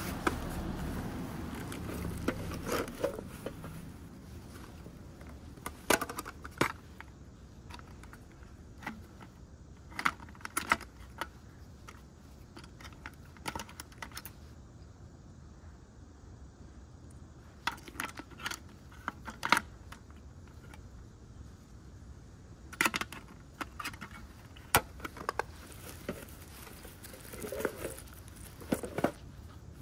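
Hands rustling a pouch, then scattered sharp clicks and clinks as a small metal tin and the tobacco pipe and Zippo lighter inside it are handled and moved about.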